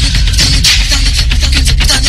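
Loud, dense music with a fast beat, accompanying a stage dance.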